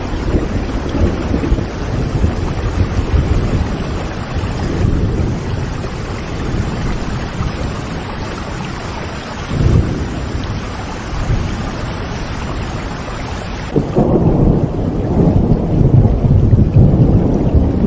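Steady heavy rain with low rolling thunder, which swells a little past halfway and again near the end, when the rumble grows stronger and the rain's hiss fades back.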